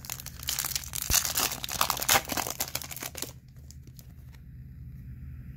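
Foil wrapper of a 2021 Topps Chrome Platinum Anniversary card pack being torn open and crinkled by hand, a dense rapid crackling that stops about three seconds in.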